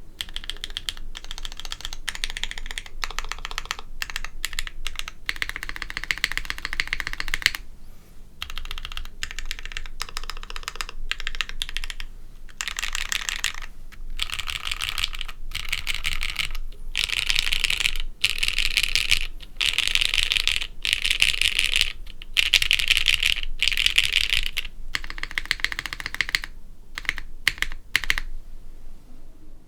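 Continuous fast typing on a custom mechanical keyboard: lubed Gateron X linear switches on an aluminum half plate in a stainless-steel-bottomed case, with GMK Café keycaps. Rapid keystrokes in runs with brief pauses between bursts.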